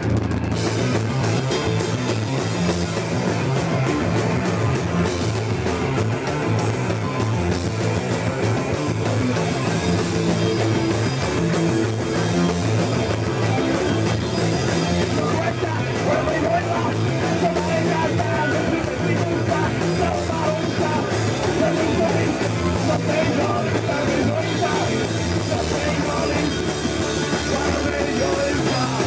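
Hardcore punk band playing live, with distorted electric guitar, bass and a drum kit pounding without a break, and singing over it in places.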